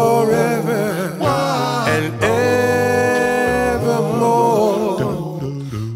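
Male doo-wop vocal group singing a cappella in close harmony: sustained, wordless chords over a low bass part, the chord changing a few times.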